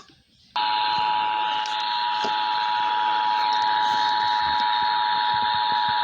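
Emergency Alert System two-tone attention signal (853 and 960 Hz sounded together). It is one steady, unbroken dual tone that starts about half a second in, over a hiss of broadcast static, and it announces the start of an emergency alert, here a severe thunderstorm warning.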